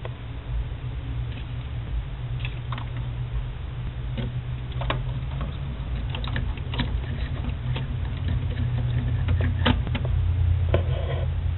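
Scattered small clicks and taps of a plastic action figure and its packaging being handled, irregular and loudest in the middle, over a steady low hum.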